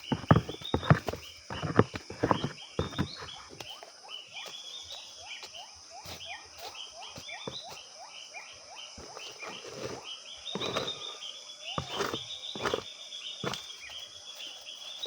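Outdoor forest ambience: a steady high insect drone with rapid, repeated short chirping calls. A series of sharp knocks and thuds comes in the first few seconds and again about 11 to 13 seconds in.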